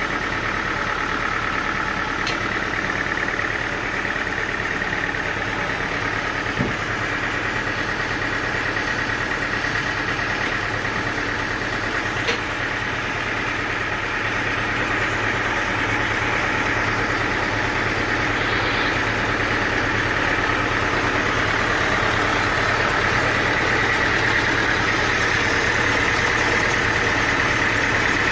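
Portable sawmill's engine running steadily, with a few faint clicks.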